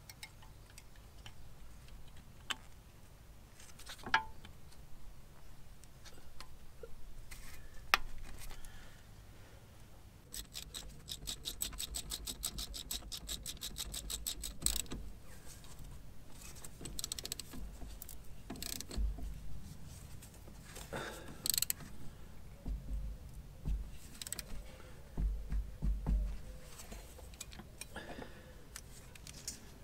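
Metal brake caliper hardware being handled and fitted: scattered sharp metallic clicks and clinks, with about four seconds of rapid, even ticking a little past a third of the way in, and a few dull knocks near the end.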